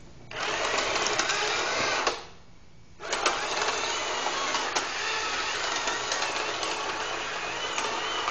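Tamiya twin-motor gearbox in a homemade model tank, its small electric motors and plastic gears whirring with a wavering whine. It stops a little after 2 seconds in and starts up again about a second later.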